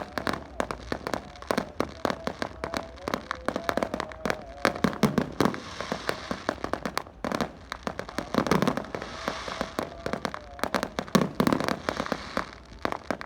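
Many firecrackers and fireworks going off at once: a dense, irregular run of sharp pops and crackles, with a few heavier bangs about five, eight and eleven seconds in.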